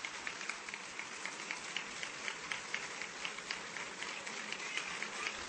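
Large audience applauding, many hands clapping at once in a dense, steady patter.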